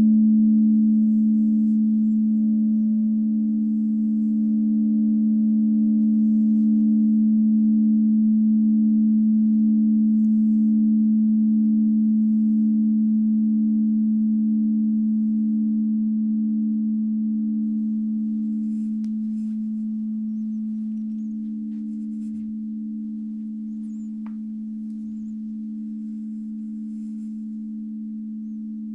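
Frosted quartz crystal singing bowls ringing in two steady, pure low notes, the higher one wavering in slow pulses. The ringing fades gradually over the second half.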